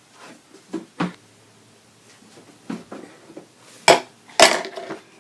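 Soap-making utensils and containers being handled on a work surface: a series of short knocks and clatters, the two loudest near the end.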